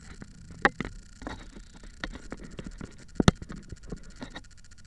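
Scattered light clicks and knocks, one sharper knock about three seconds in, over a faint low hum.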